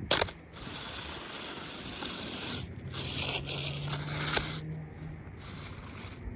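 Pry bar scraping against brittle asphalt shingles as roofing nails are pried out, in three long scraping strokes with short pauses between, after a sharp click at the start.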